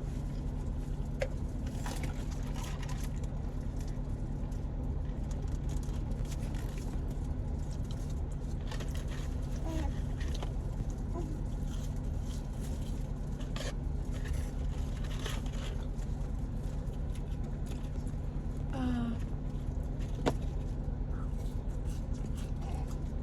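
Steady low hum of a car idling, heard inside the cabin, with scattered soft clicks and rustles from eating.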